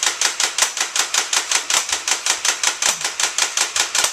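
Rapid automatic gunfire, an even rattle of about ten shots a second.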